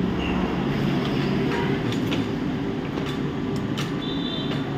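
Steady low background rumble, with light clicks and taps as oscilloscope probe leads and clips are handled. A brief high tone sounds about four seconds in.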